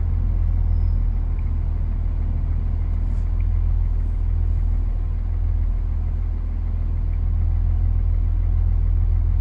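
Steady low diesel engine rumble heard from inside a lorry's cab while the truck is towed uphill on snow by a tractor.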